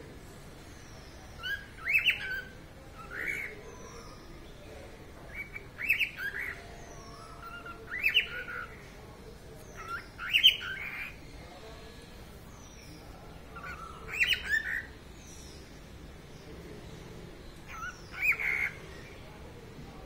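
Cockatiel singing: short whistled phrases with quick pitch glides, repeated about every two seconds. Faint high descending chirps sound in the background.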